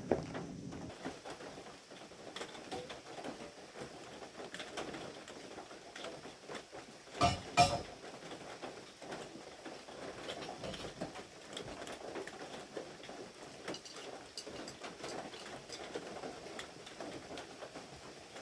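Rain pattering, a steady spatter of small drops throughout, with two louder knocks close together about seven seconds in.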